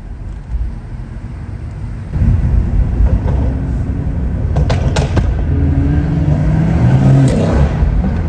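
BMW M140i's Stage 2 tuned 3.0-litre B58 turbocharged straight-six with a custom exhaust: a low rumble, then about two seconds in it opens up under hard acceleration, the note climbing. A few sharp exhaust cracks come through, near the middle and again near the end.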